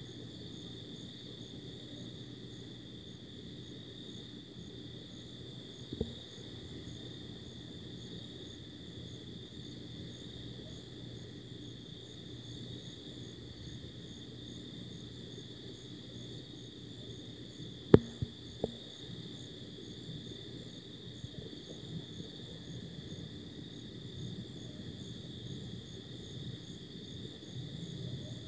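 A steady, high-pitched chorus of night insects, with a faint pulsing at the top, over a low rumble. There is a sharp click about six seconds in, and a louder one about eighteen seconds in, followed by a smaller click; that second click is the loudest sound.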